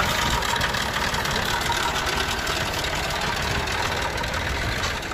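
Nissan UD truck's V8 diesel engine idling steadily, heard close up.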